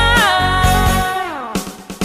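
Background music: a held melody note that slides downward, with the bass and beat dropping out about halfway through.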